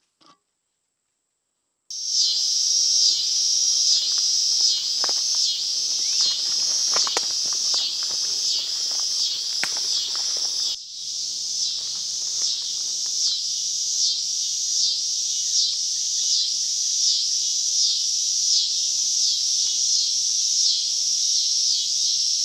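Loud late-summer insect chorus: a dense, high buzz that swells and fades about once a second. It starts suddenly a couple of seconds in after near silence, and scattered sharp ticks and rustles sound over it in the first half.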